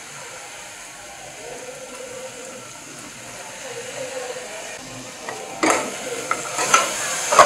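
Spiced masala sizzling softly in a pressure cooker, then from about five and a half seconds in a metal ladle scraping and knocking against the pot as curd is stirred into it.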